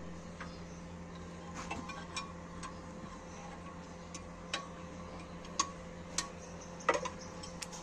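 A steady low hum with faint, irregular clicks and ticks scattered through it.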